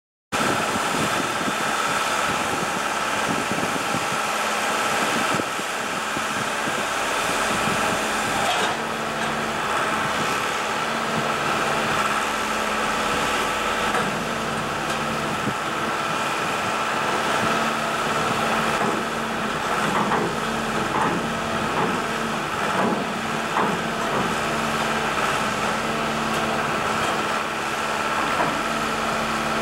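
Diesel machinery of a railroad tie work train running steadily, with a constant high whine. About nine seconds in, a deeper humming note joins.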